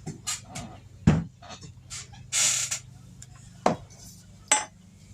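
Kitchen handling sounds: a series of clicks and knocks of utensils and containers being handled, the loudest a thump about a second in, with a short scraping or rustling noise midway, over a faint steady hum.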